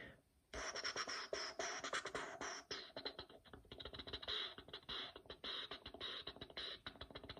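Fingers turning and rubbing a small plastic Peppa Pig toy figure close to the microphone: a dense run of irregular clicks and scratchy rustling, starting about half a second in.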